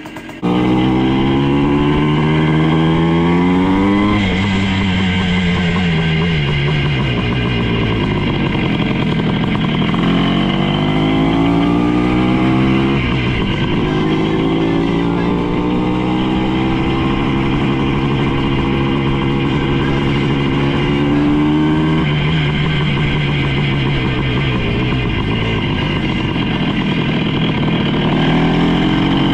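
1973 Honda CR250 Elsinore's air-cooled two-stroke single-cylinder engine being ridden, starting suddenly about half a second in. Its pitch climbs and falls several times as the bike accelerates and slows, holding steady for a stretch in the middle.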